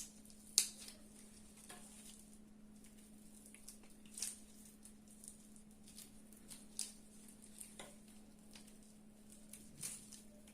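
Faint, scattered clicks and soft rustles of dried figs being pulled open by hand, over a steady low hum.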